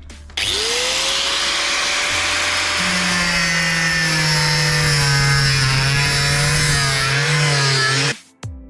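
Angle grinder starting up and cutting through the steel roof panel of a van, its whine rising as the disc spins up, then sagging and wavering as it bites into the metal, before it cuts off suddenly near the end.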